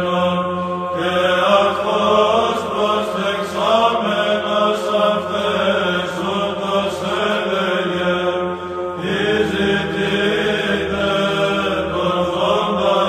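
Orthodox Byzantine chant: voices singing a melodic line over a steady held drone note (the ison), with a new phrase starting about two-thirds of the way through.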